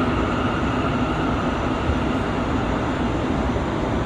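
Bombardier R179 subway car running on the rails, heard from on board: a steady rumble and rail noise with a faint steady tone above it.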